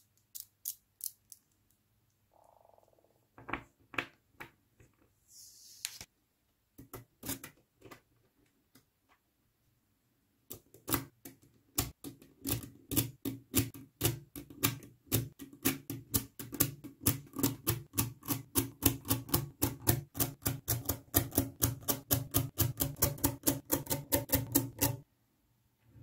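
Small magnetic balls clicking as they snap onto one another, one at a time. The clicks are sparse at first, then from about ten seconds in come in a fast, even run, several a second, which stops abruptly about a second before the end.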